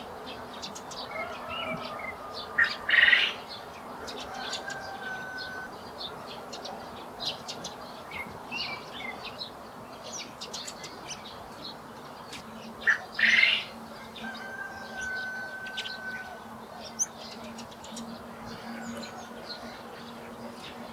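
Garden birds chirping and calling, with many short high chirps throughout. Two loud, harsh calls stand out, about three seconds in and again near the middle, each followed by a held whistled note.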